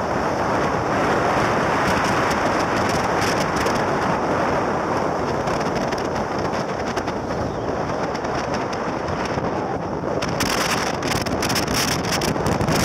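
Wind buffeting the microphone over the steady road and engine noise of a moving car, with rapid crackling from about ten seconds in.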